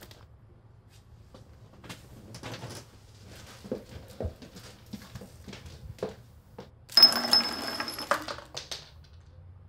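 Glasses, cups and bottles knocking and clinking as party debris on a table is handled, a series of small separate knocks and clinks, then a louder clattering rattle lasting about a second, about seven seconds in.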